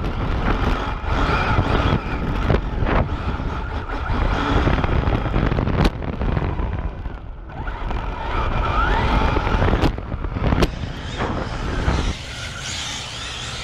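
Electric RC rally car driving hard on pavement, heard largely from a camera riding on the car: tyre and road rumble with the motor's whine rising and falling, and a few sharp knocks. After about twelve seconds the sound turns lighter and steadier.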